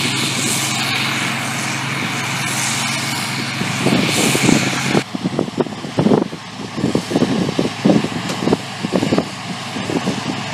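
Harvest machinery engine running steadily with a whine and hiss. About five seconds in, the hiss drops away suddenly and irregular low knocks and rumbles take over.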